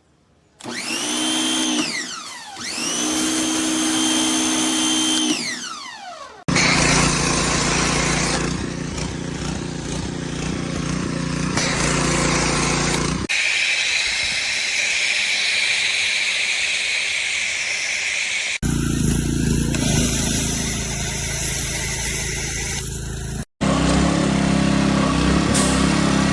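Electric pressure washer motor starting with a rising whine, running steadily and winding down, twice. Then stretches of steady machine running with a spraying hiss, broken by abrupt cuts.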